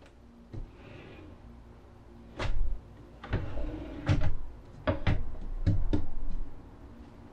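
Kitchen drawers being slid on their runners and pushed shut, with about seven knocks and thumps as the drawers and drawer fronts bang into place. The knocks start a couple of seconds in.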